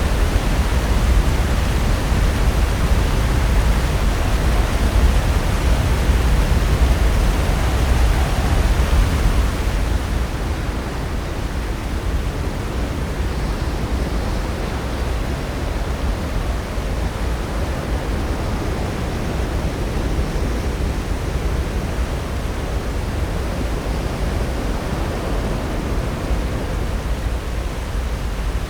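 Pacific Ocean surf breaking and washing in a steady, loud rush of noise that grows duller and a little quieter about ten seconds in.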